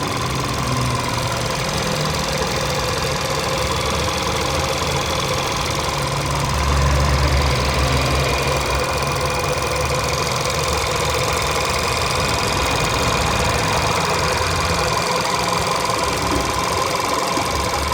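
A 2012 Volkswagen Jetta's 1.2 TSI four-cylinder turbo petrol engine running steadily, presented by the owner as its normal running sound. The low hum swells briefly about seven seconds in.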